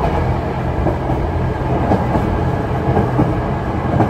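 Running noise of the KTR 8000 series diesel railcar at speed, heard in the gangway between cars: a steady low rumble of wheels and engine with scattered light knocks and rattles.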